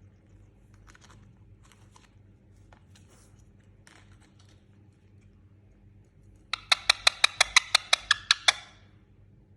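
Indian ringneck parakeet giving a rapid series of about a dozen short, sharp calls, some six a second, lasting about two seconds past the middle. Before that only faint light clicks are heard.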